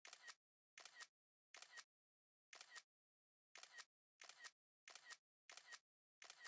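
iPhone camera shutter sound effect, the synthetic shutter click played about nine times in a row at uneven intervals of roughly a second, each a quick double click with dead silence between.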